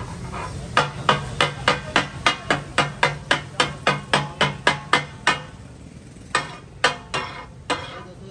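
Katakat chopping: flat metal blades striking a large iron tawa in a quick, even rhythm of about three to four ringing clangs a second, as cooked masala fish is chopped on the griddle. The run breaks off about five seconds in, and a few slower strikes follow.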